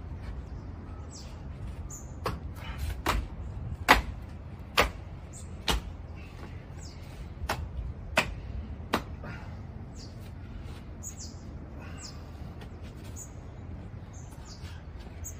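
Sharp taps and knocks from hand work on a plastered quoin, about eight spread over the first nine seconds, with small birds chirping now and then over a low steady rumble.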